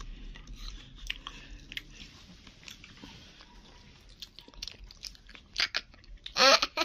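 Crisp apple slices being bitten and chewed, with scattered small crunches. A loud burst of voice comes near the end.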